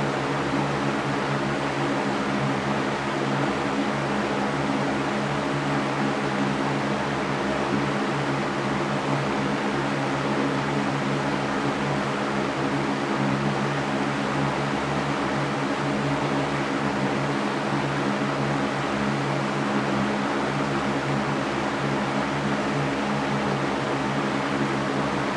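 Electric fan running steadily: an even rush of air with a constant low motor hum beneath it.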